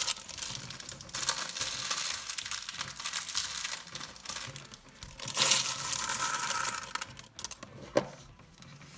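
Plastic LEGO parts bag crinkling and tearing open, with small plastic pieces clattering against each other. The crinkling is louder in the second half and stops near the end with a single click.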